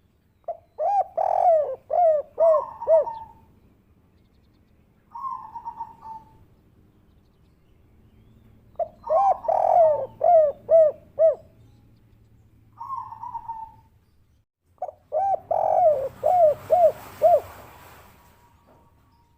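Spotted dove (derkuku) singing its 'kuk 3' cooing song. There are three bouts of quick, rhythmic coos, each a run of short arching notes, with a shorter single phrase in each gap.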